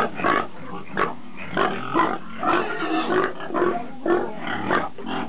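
Boar grunting in a steady string of short grunts, about two a second, while he is put in with a sow for mating: the rhythmic courtship grunting of a boar.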